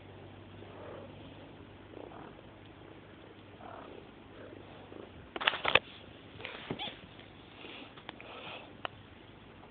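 Domestic cat purring, with the scuffling and sharp knocks of kittens wrestling on a wooden floor; the loudest knocks come a little past the middle.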